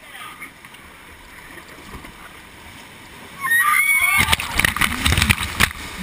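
Whitewater rushing as an inflatable raft drops over a 7 m waterfall. About three and a half seconds in the rafters shriek, then water crashes over the raft and the camera in a loud rush for about a second and a half.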